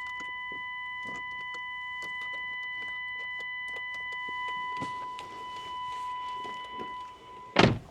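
A car's electronic warning tone sounding steadily, with a few faint clicks, until it cuts off near the end, followed by a single loud thump.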